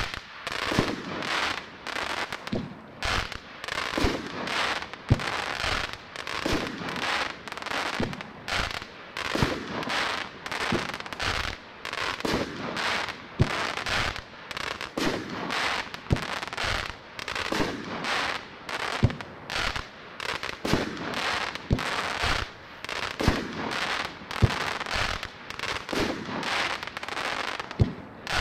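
Texas Outlaw 'Double Tap' consumer fireworks cake firing shot after shot, about two a second, each launch followed by its stars bursting overhead.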